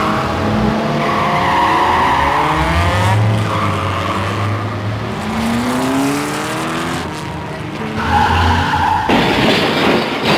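Car engine revving up and down with tyres squealing as the car is driven hard, then a crash about nine seconds in: a burst of noise lasting about a second.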